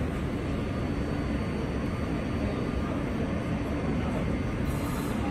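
Steady low rumble and hum of an R160 subway train standing at an underground station platform with its doors open, its equipment running while it waits to depart.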